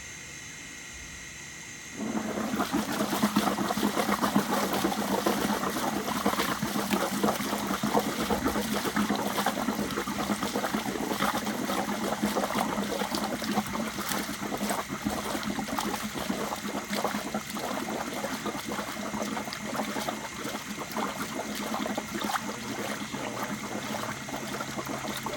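Gas from a beer tank bursting through a blow-off hose into a bucket of liquid: about two seconds in it starts suddenly and keeps on as a loud, continuous bubbling and gurgling.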